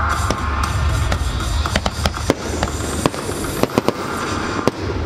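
Fireworks going off over loud show music: a string of sharp cracks and bangs, coming thicker in the second half, above the music's steady bass.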